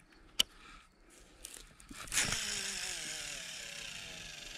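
A sharp click about half a second in, then a Sougayilang Warrior WA 6000 baitcasting reel's spool whirring as line pays out on a cast with a 3-ounce bank sinker, its pitch falling slightly as the spool slows.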